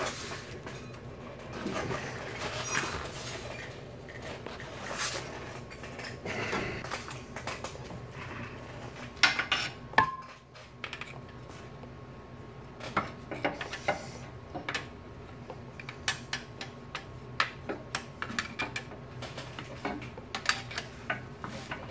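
Irregular light metallic clinks and taps of a steel transmission dipstick tube and a hand tool against the transmission case as the tube is pried and worked into its bore, coming in scattered runs over a faint steady hum.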